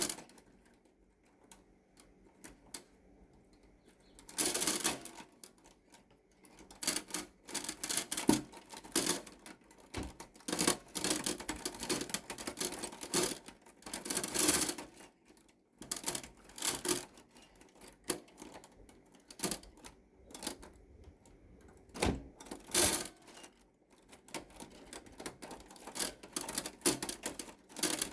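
Typewriter being typed on: irregular runs of sharp key clacks with short pauses, after a quiet first few seconds. A few longer, louder bursts stand out, about a fifth of the way in and again near the end.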